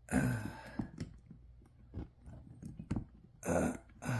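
A man's two strained grunts while working overhead, one right at the start and one about three and a half seconds in, with light clicks of hands handling fan hardware between them.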